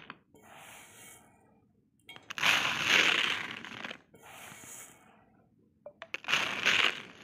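Dry raw rice grains stirred and raked by hand in a plastic basket, giving a crunchy, gritty rustle. It comes in two loud passes, about two seconds in and again about six seconds in, with softer rustling between them.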